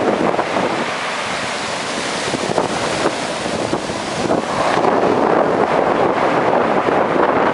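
Black Sea surf washing onto the shore, a continuous rushing wash that swells louder about two-thirds of the way through, with wind buffeting the microphone.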